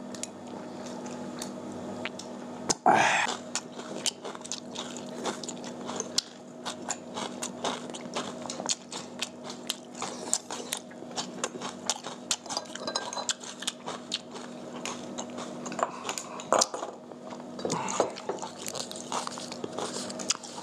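Two people eating close to the microphone: chewing and crunching, with frequent small clicks of chopsticks against bowls and dishes. There is one louder breathy sound about three seconds in, and a steady low hum underneath.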